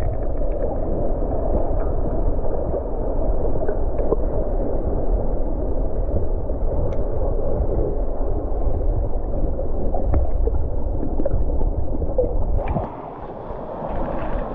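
Creek water heard through a submerged camera: a muffled, steady rushing and gurgling with a deep rumble. About twelve seconds in it gives way to a quieter, clearer sound.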